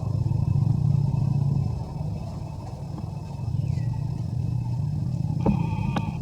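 Steady low motor rumble, a little louder for the first two seconds, with a few sharp clicks near the end.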